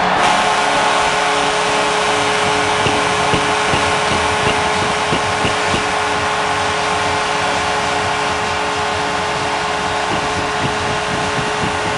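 Hockey arena crowd cheering a home-team goal: a loud, sustained roar with scattered shouts and whistles that eases a little toward the end.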